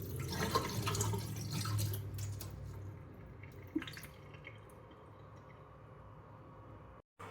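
Water splashing and dripping, busiest in the first two and a half seconds and then settling to a softer steady trickle, with one sharp click near the middle.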